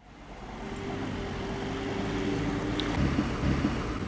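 Berlin U-Bahn F74/F76 train approaching: a low rumble with a steady hum, growing slowly louder.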